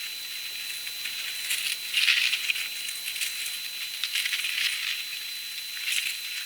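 Outdoor storm ambience sped up thirty-fold by time-lapse: a high hiss with a thin steady whine, broken by irregular louder crackling surges, about two seconds in and again around four and six seconds.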